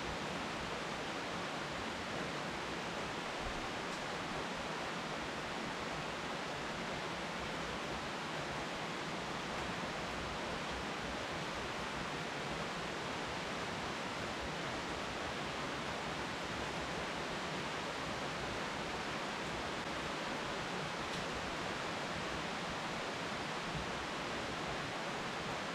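Steady rain falling on leafy trees: an even, unbroken hiss.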